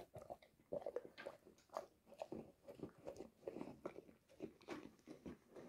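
A cane corso chewing and crunching a crumbly cake, with faint, irregular crunches about two or three times a second.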